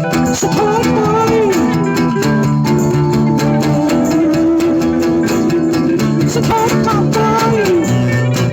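Music: a guitar-led song with a steady beat, its melody holding long notes and sliding between them.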